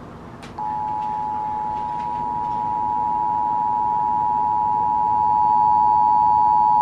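Emergency Alert System two-tone attention signal: two pure tones sounding together, coming on about half a second in and held steady. It is the alarm that heralds a broadcast emergency alert message.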